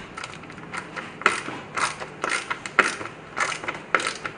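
Ratchet screwdriver worked back and forth by hand, its pawl clicking over the ratchet wheel in short bursts about twice a second.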